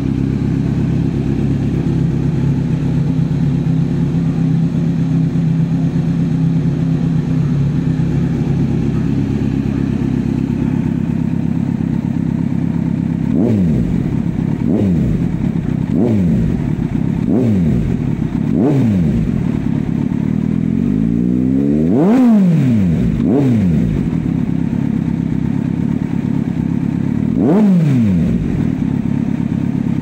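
Kawasaki Z900's inline-four idling through an Arrow GP slip-on exhaust, then blipped from about halfway: five quick revs roughly a second apart, a longer climb to the highest rev, and two more blips near the end.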